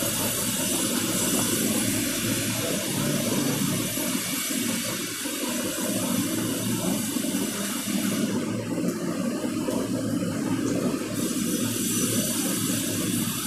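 Felt-tip marker writing on a whiteboard over a steady background hiss and low rumble; the hiss thins out for a few seconds past the middle.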